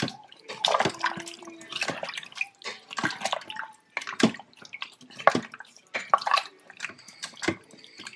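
Wooden spoon stirring chunks of beef, potatoes and carrots in broth in a stainless steel Instant Pot inner pot: the broth sloshes and splashes, with irregular knocks and scrapes of the spoon and chunks against the pot.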